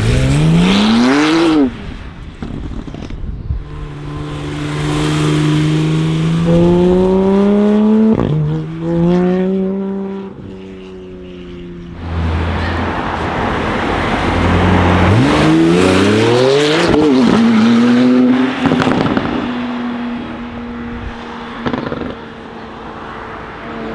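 Porsche 991 Turbo S twin-turbo flat-six with an Akrapovic exhaust, revving sharply and accelerating hard through the gears, with a shift and re-climb about eight seconds in. Quick revs follow later, then a steady engine note, with a few sharp cracks from the exhaust.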